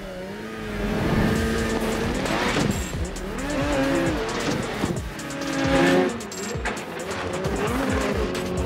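Snowmobile engine revving hard, its pitch rising and falling several times as the sled accelerates and lands, over background music.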